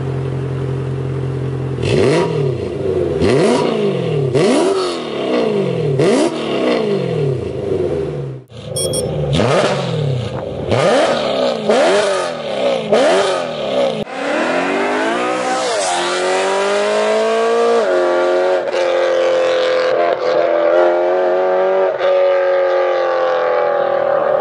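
BMW M3 E92's 4.0-litre V8 through an IPE valved exhaust: idling, then revved in a series of quick sharp blips with the exhaust valves closed. After a cut it is blipped again with the valves open, then accelerates hard away, the pitch climbing through gear changes and then holding steady.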